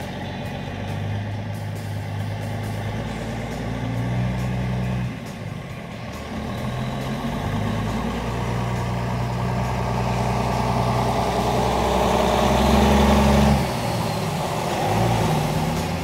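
Diesel semi truck pulling a grain hopper trailer moves off, its engine revving and easing off several times. It gets louder as it comes closer and is loudest a little before the end, then drops off suddenly.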